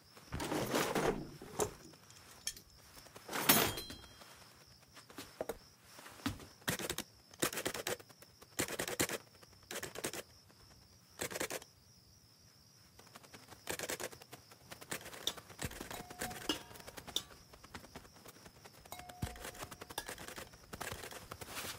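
A run of separate small handling sounds: clicks, knocks, clinks and rustles, mostly about a second apart, with a couple of faint brief tones near the end.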